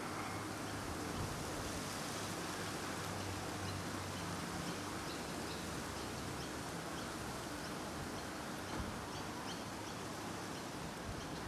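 Steady outdoor wind noise, an even hiss that holds at one level, with faint short high bird chirps scattered through it.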